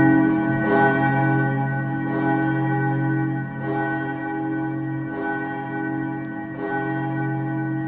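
Steel church bell ringing, struck about every one and a half seconds, each stroke sounding over the hum of the last.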